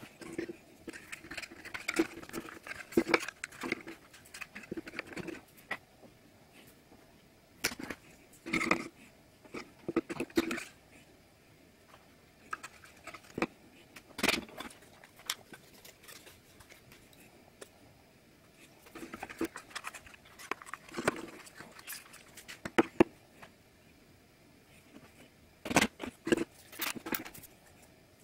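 Stiff card pieces of a 3D model-house puzzle being handled and fitted together on a table: scattered sharp clicks, taps and rustles in bursts with pauses of a second or two between them.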